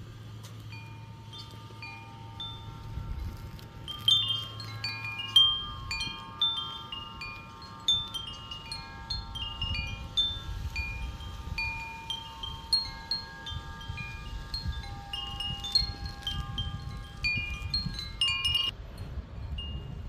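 Wind chimes ringing in the breeze, struck irregularly many times with long overlapping tones. The ringing is sparse at first, gets busier about four seconds in, and stops short near the end, over a low wind rumble.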